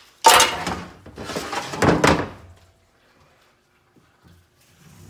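Metal transmission parts being set down and shifted on a steel workbench: two loud clattering knocks and scrapes in the first two and a half seconds, then a few faint taps.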